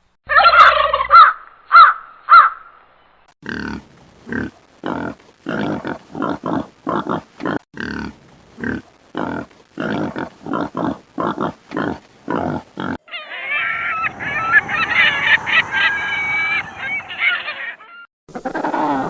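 A series of separate animal-call recordings. First come a few loud calls. Then a long run of short calls repeats about twice a second, followed by several seconds of many overlapping calls like a flock, and a new call starts near the end.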